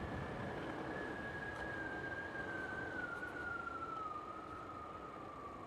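Riding noise of a Yamaha Vino 125 scooter picked up by a helmet-mounted microphone: steady wind and road rush, with a thin whistling tone that slowly falls in pitch.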